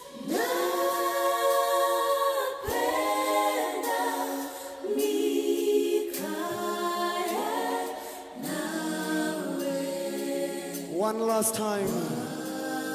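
Voices singing unaccompanied, a choir-like group in long held phrases with short breaths between them.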